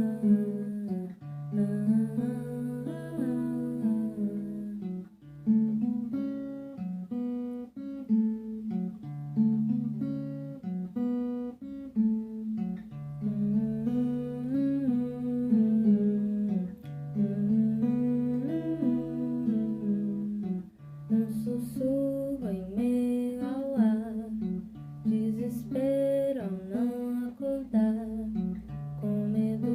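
An acoustic guitar song: the guitar plays a repeating pattern of low notes and chords while a voice sings a melody over it.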